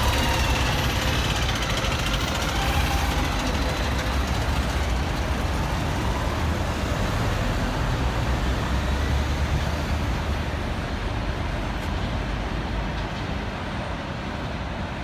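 A city bus pulls away from the stop and drives off. Its engine rumble is strong at first and fades over the last few seconds as the bus recedes, with general street traffic going on underneath.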